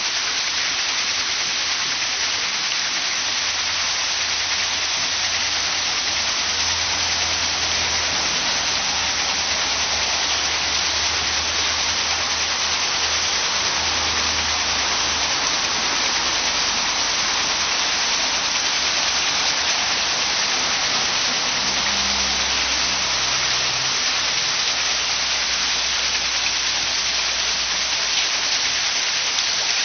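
Water splashing and pouring off a turning waterwheel: a steady, dense hiss, with a faint low rumble coming and going underneath.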